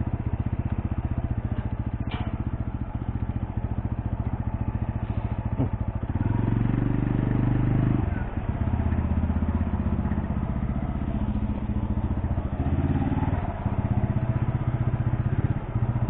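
TVS Apache RTR 200's single-cylinder engine running at low speed with a steady, deep exhaust beat as the bike rolls along, picking up briefly about six seconds in.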